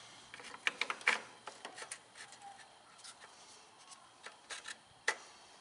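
Light scattered clicks and knocks of a Briggs & Stratton engine's air filter base being slid onto the carburetor and fitted by hand, with a sharper knock near the end.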